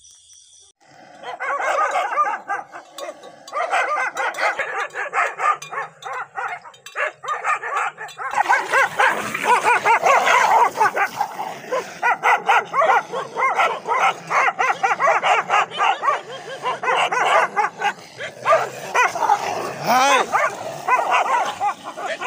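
Dogs barking and yipping in rapid, overlapping bursts, denser and louder from about eight seconds in, with a rising yelp near the end.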